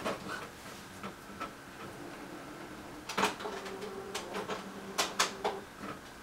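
Office printer printing a page: a string of irregular clicks and clunks, with a faint steady whirr from about three seconds in.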